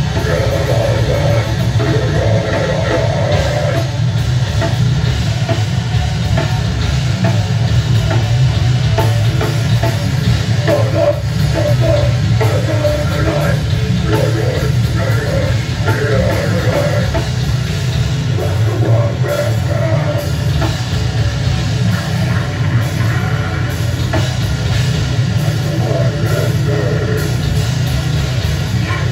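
A live rock band playing loud and full-on: electric guitar, bass guitar and a drum kit together.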